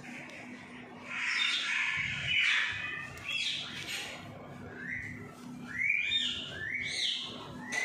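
Rose-ringed parakeets calling: a stretch of harsh chatter about a second in, then a series of short squawks that sweep up in pitch.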